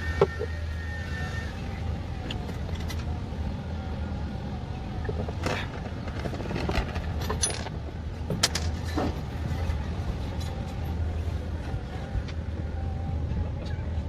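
Steady low hum with scattered knocks and clicks as the seat parts and frame are handled, the sharpest knock just after the start and others about five and a half and eight and a half seconds in.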